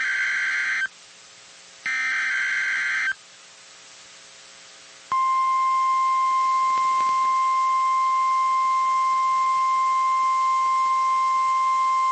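Emergency Alert System SAME header data bursts on NOAA Weather Radio: two short buzzing bursts, one ending about a second in and another from about 2 to 3 s. About 5 s in, the steady 1050 Hz NOAA Weather Radio warning alarm tone starts, opening a snow squall warning.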